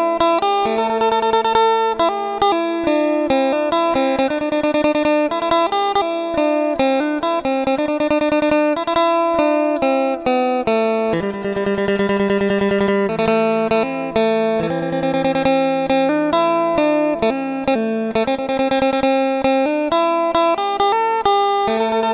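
Background music on a plucked string instrument, playing a quick run of notes.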